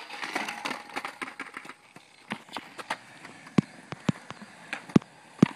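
Skateboard wheels rolling on concrete, then a string of sharp wooden clacks as a skateboard deck hits the concrete. The loudest clacks come about three and a half and five seconds in.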